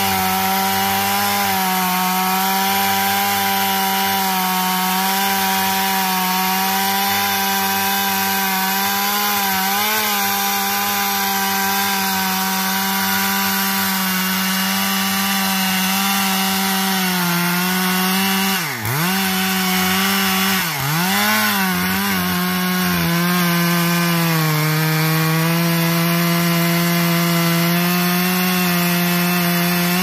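Two-stroke chainsaw running at full throttle while cutting into the base of a large tree trunk. Its pitch dips sharply twice about two-thirds of the way through, then it runs on steadily at a slightly lower pitch.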